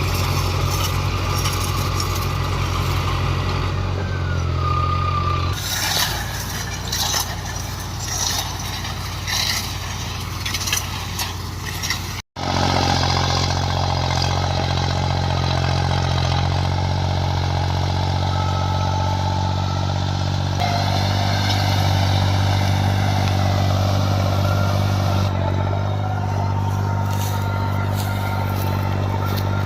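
New Holland tractor's diesel engine running steadily under load while driving a Shaktiman square baler, with the baler's mechanism clattering over the engine drone. The sound cuts out for an instant about twelve seconds in.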